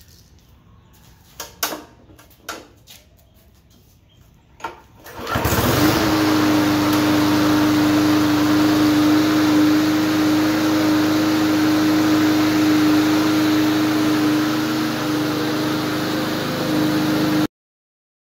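A few light clicks, then about five seconds in the push mower's Briggs & Stratton engine starts and settles straight into a steady run at speed with a strong even hum. The sound cuts off abruptly near the end.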